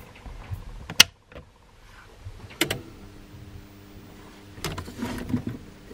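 A wall socket switch clicks on, and about a second and a half later a second click comes as the CyberPower BR700ELCD UPS takes mains power, followed by the unit's steady low hum. A brief rustle comes near the end.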